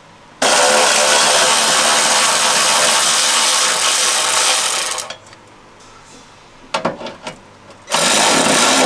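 Power tool running in two long runs to back out the bolts holding the rear light assembly, with a few clicks in the pause between them.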